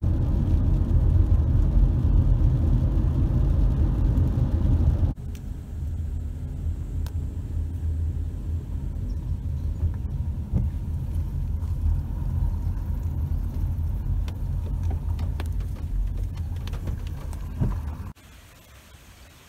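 Car cabin noise while driving on a wet road: a low tyre-and-engine rumble, loud for the first five seconds, then cutting to a quieter rumble with a few light ticks as the car rolls slowly. Near the end it drops suddenly to a faint hiss.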